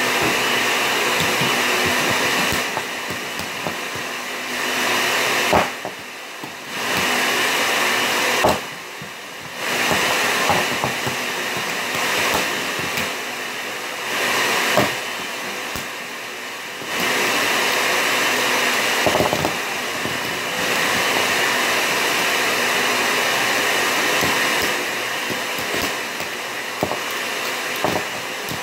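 A steady rushing noise that rises and falls in level, with short drops about six and nine seconds in, under scattered small knocks and clicks of die-cast toy cars bumping each other and the tabletop.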